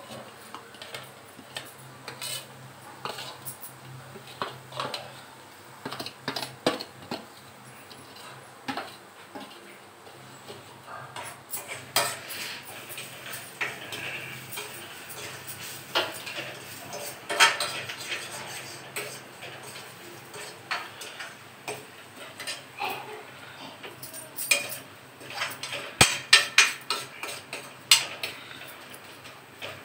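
Metal spoon clinking and scraping against a steel kadhai while spice powders and garlic paste are stirred, in irregular clinks, with a quick run of clinks near the end.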